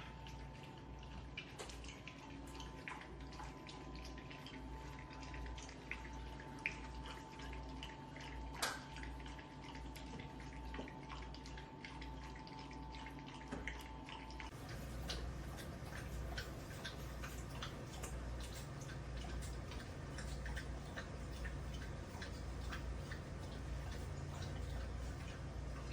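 Pet water fountain running: water trickling and dripping over a low electric pump hum. A faint steady tone under it stops about halfway through.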